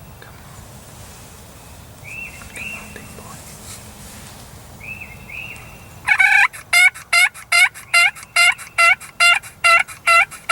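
Wild turkey yelping: a few soft paired calls, then about six seconds in a loud, even run of about eleven yelps, each note dropping in pitch.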